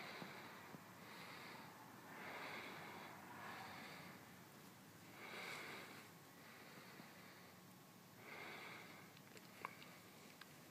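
Near silence with a person's faint breathing, a series of soft breaths a second or two apart, and a few small clicks near the end.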